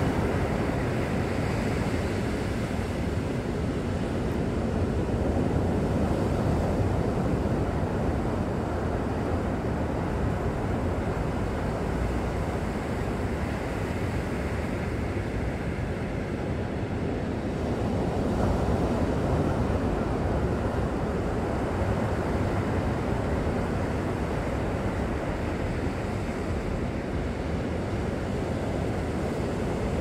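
Ocean surf and wind: a steady rushing noise that slowly swells and eases.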